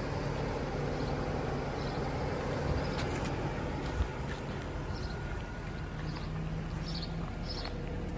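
Steady low outdoor rumble with a faint hum, and short high bird chirps coming in over the second half. There is a single sharp click about four seconds in.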